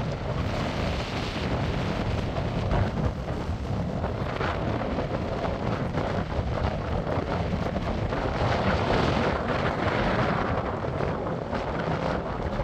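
Wind buffeting the microphone: a steady rumbling rush with no distinct tones, swelling and easing slightly.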